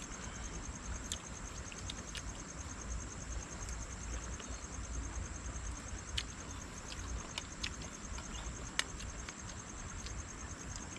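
Insects chirring steadily in a rapid, high-pitched pulse, over a low rumble, with a few faint sharp clicks.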